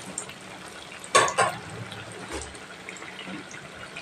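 Malpua batter deep-frying in hot refined (white) oil in a kadai, a steady sizzle. Two short knocks about a second in.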